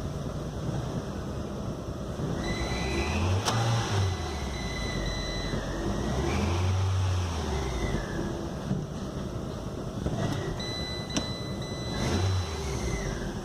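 Fiat Linea Dualogic engine running and revved up three times, with a thin high whine that comes in with each rev. This is the clutch noise the customer complains about.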